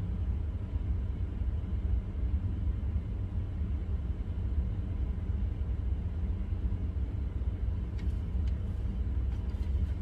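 Steady low background rumble, with a few faint clicks near the end.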